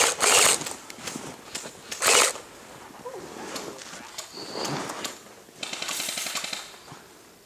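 Airsoft guns firing full-auto bursts of rapid clicking shots: two loud bursts at the start, another about two seconds in, and quieter, more distant bursts near the end.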